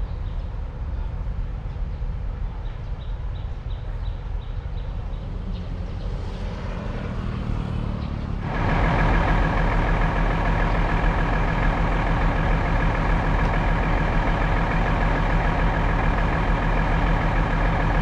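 Diesel locomotive engine running steadily with a low hum. About eight and a half seconds in it becomes suddenly much louder and fuller, with a steady whine in it, and stays that way as the locomotive stands close by.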